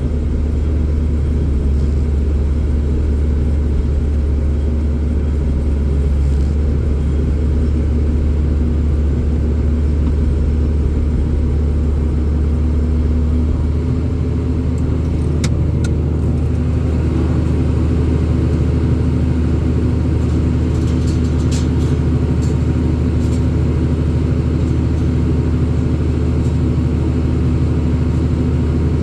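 Vehicle engine running steadily with a low rumble and a slight change in pitch about halfway through, with a few sharp clicks or rattles around the middle.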